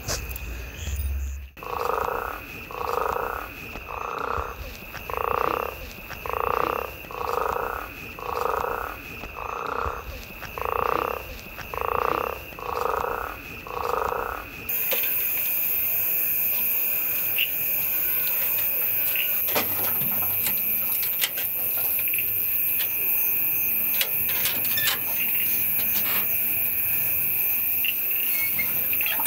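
Frogs croaking at night: about a dozen evenly spaced croaks, roughly one a second, over a steady high whine. About halfway the croaking stops and a dense high hiss takes over.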